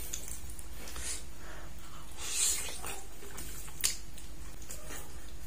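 A person eating satay up close: quiet chewing with a soft wet slurp about two and a half seconds in and one sharp mouth click just before four seconds.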